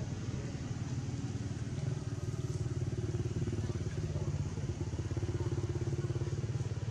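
An engine running steadily at idle, a low, fast, even throb.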